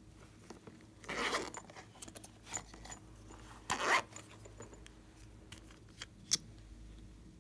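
A zipper pulled in two short rasps, about a second in and again near four seconds, with small handling clicks between them and one sharp click near the end.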